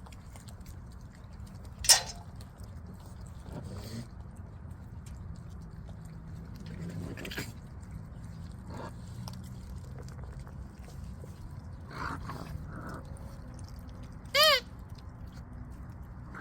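Squeaky dog toy squeaked once near the end: one short squeak whose pitch rises and falls. About two seconds in there is a single sharp knock, the loudest sound, with faint small rustles and knocks over a low steady background.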